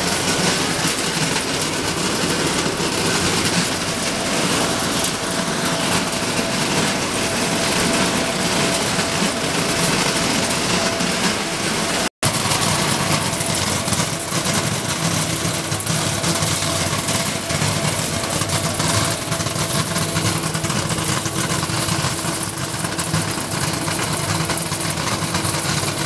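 A plastic-flake colour sorting machine running, with shredded plastic flakes pouring down its vibrating feeder chute in a steady, dense rattling hiss over a faint machine hum. The sound drops out for a split second about twelve seconds in.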